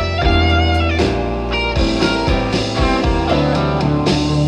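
Rock song playing, with guitar over a steady beat: an instrumental stretch between sung lines.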